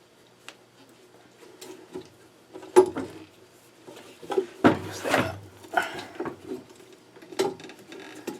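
Metal tools and small fittings clinking and knocking as they are handled during an air compressor fitting repair: scattered light clicks, a sharp knock about three seconds in, and a louder rattle of handling about five seconds in.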